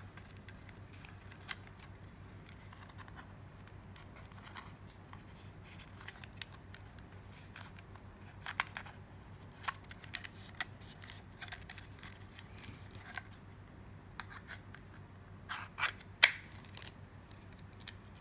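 A Kydex knife sheath and its snap-fastened belt loop being handled: scattered small clicks, scrapes and rubbing of stiff plastic. The clicks come more often in the second half, and the sharpest click is near the end.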